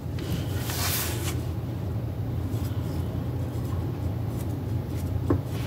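A steady low hum, with a brief rustle about a second in and a small click near the end.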